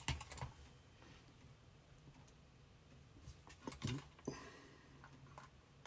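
Faint, scattered clicks and taps of a small screwdriver and the plastic mouse shell being handled while a bottom screw is worked into its hole, with a short cluster of clicks about two-thirds of the way through.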